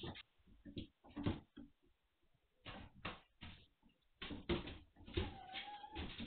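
Five-week-old Magyar Vizsla puppies clambering over a wooden ramp and hollow plastic play shells: an irregular run of knocks and thumps. A puppy gives a short whine near the end.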